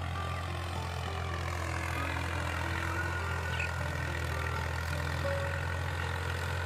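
Tractor engine running steadily, a low even drone that holds the same pitch throughout.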